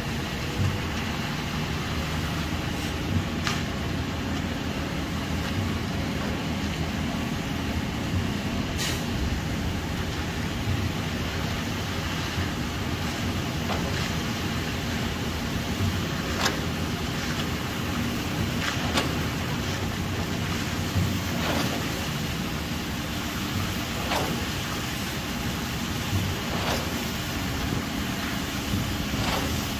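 A heavy engine running steadily, with occasional sharp knocks every few seconds.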